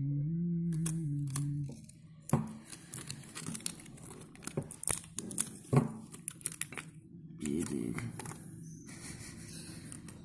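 Small clicks, scrapes and crinkling as a thin metal tool pries and picks at a silicone-stuck metal bracket and flex cables of a dismantled print head.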